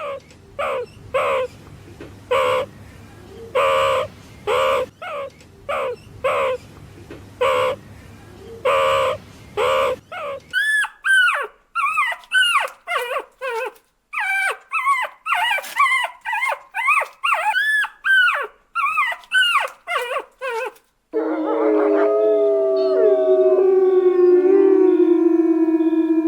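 Puppies whimpering and yelping in short, repeated pitched cries, several a second, growing higher and more bending about a third of the way in. For the last few seconds this gives way to several long, overlapping howls.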